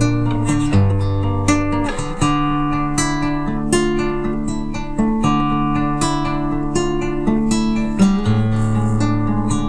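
Nylon-string classical guitar played solo: a steady flow of plucked notes over held bass notes, with no singing.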